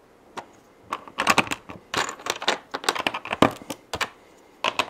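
LEGO bricks being handled and pressed onto a baseplate: a run of sharp plastic clicks and rattles in quick clusters.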